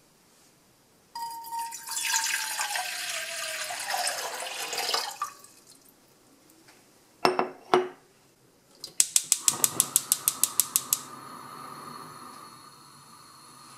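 Water poured from a glass pitcher into a pot on a gas hob for about four seconds, then two glassy knocks as the pitcher is set down. A gas hob's spark igniter clicks rapidly, about eight ticks a second, for two seconds; the burner then lights and burns with a steady hiss.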